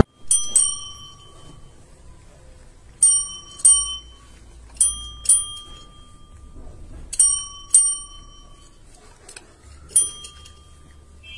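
A small metal bell rung about nine times, mostly in quick pairs of bright dings, each ringing briefly before the next pair about two seconds later.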